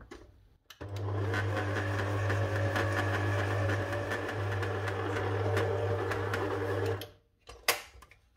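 Electric stand mixer running steadily for about six seconds with its flat beater working a crumbly butter-and-nut dough, then switching off suddenly; a couple of sharp clicks follow near the end.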